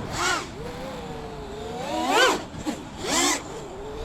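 5-inch FPV quadcopter's brushless motors and propellers whining at a steady pitch. The whine sweeps sharply up and back down with three throttle punches: just after the start, around two seconds in (the loudest), and just after three seconds in.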